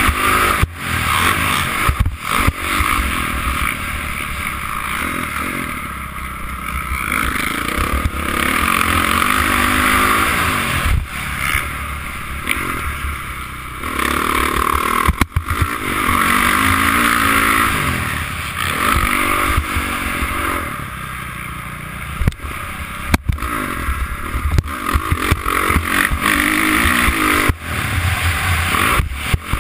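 Honda CRF450 single-cylinder four-stroke dirt bike engine revving up and down over and over, heard from the rider's helmet camera while riding a motocross track. Sharp knocks and clatter come in here and there as the bike hits bumps.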